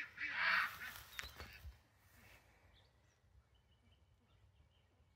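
Ducks quacking: a loud call in the first second ends a quick run of quacks, then fades within about two seconds, leaving only faint bird chirps.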